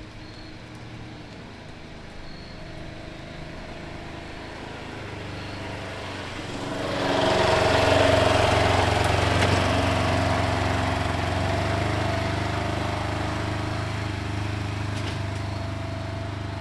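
Compact diesel tractor engine running steadily, growing clearly louder about seven seconds in as it takes on more throttle, then easing off slightly.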